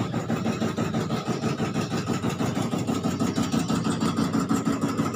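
An engine running steadily at idle, with an even, rapid beat.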